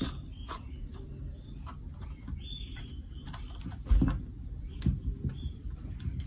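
A cat batting cherries around a countertop: scattered light taps and clicks of fruit and paw on the hard surface, with one louder thump about four seconds in.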